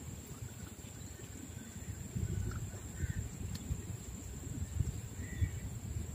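Crows cawing a few short times, over a low rumble of wind on the microphone and a steady high-pitched whine.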